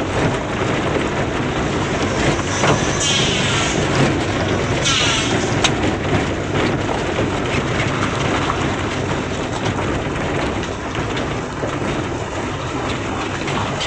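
Suzuki Swift driving slowly over a rough, unpaved road, heard from inside the cabin with the window open: a steady engine and tyre rumble with a few faint knocks. The jingling rattle from the front suspension and steering rack is gone, which the mechanic takes as the sign that the repair is done.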